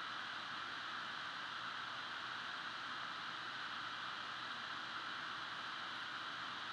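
Steady, even hiss of room tone and microphone noise, with no other sound.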